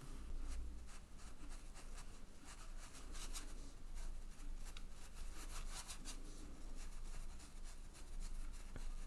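Watercolour brush scrubbing and dabbing wet paint on textured watercolour paper: soft, irregular scratchy strokes, some in quick clusters, over a faint low room hum.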